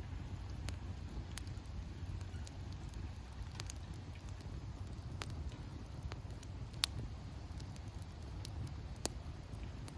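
Wood fire crackling: a steady low rumble of the burning fire with irregular sharp pops and snaps, a louder pop about seven seconds in and another near nine seconds.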